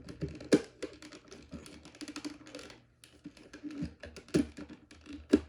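Plastic housing of a Kidde Nighthawk KN-COPP-B carbon monoxide alarm being handled: irregular clicks and taps, with sharper snaps about half a second in and near the end, as its cover is worked to snap shut.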